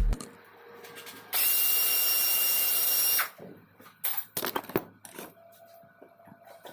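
A handheld power tool, like a drill or driver, runs steadily for about two seconds, then a few sharp metallic clicks and knocks follow.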